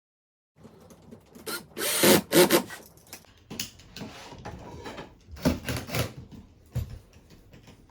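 Irregular knocks, clicks and scraping of wooden flat-pack furniture panels and tools being handled during assembly, with the loudest knocks about two seconds in and again around five and a half seconds.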